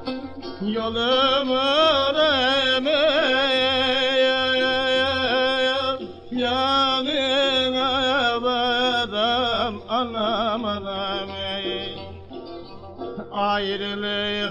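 Turkish folk song (türkü) sung by a man in long, heavily ornamented lines over instrumental accompaniment. The voice drops out for a couple of seconds near the end, then comes back in.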